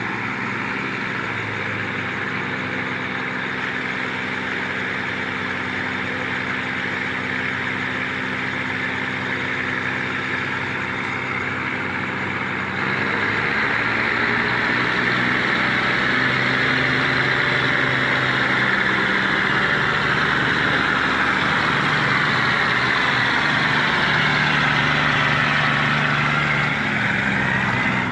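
Diesel railcar engines idling under a steady hiss of air that grows louder about halfway through, while the train's brakes are tested.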